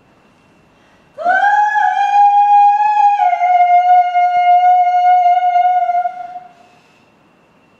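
A single long, high held note that swoops up from low as it starts about a second in. It steps down slightly in pitch about two seconds later, holds steady, and fades out after about six and a half seconds.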